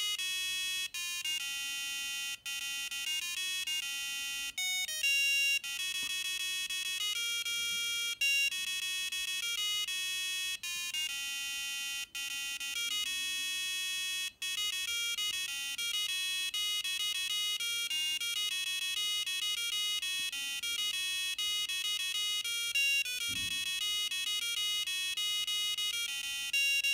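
A small electronic buzzer on an Arduino-style microcontroller board playing a tune of buzzy beeping notes, stepping from pitch to pitch like a phone ringtone, with a few short breaks between phrases.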